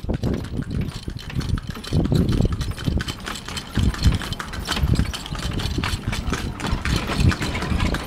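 Horse-drawn cart under way on a dirt lane: a steady rumble and rattle from the cart's wheels and frame, broken by irregular knocks from the horse's hooves.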